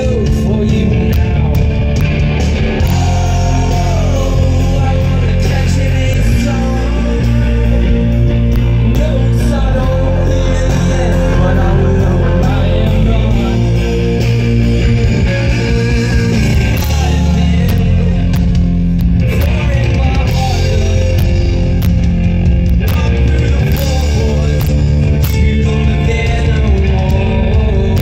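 A post-hardcore band playing loud live rock music, with electric guitars, bass, drums and singing.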